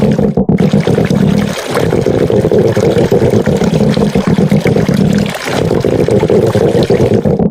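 A loud, continuous rough rattling sound, dipping briefly twice about four seconds apart as if looped.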